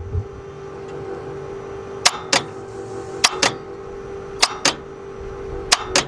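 Starter solenoid on a failing starter clicking as the key is turned: a sharp double click each time, four times about a second apart. The starter motor does not crank the engine, the sign of a starter going bad.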